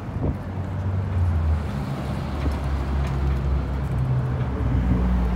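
A car engine running steadily with a low hum, its pitch shifting slightly now and then.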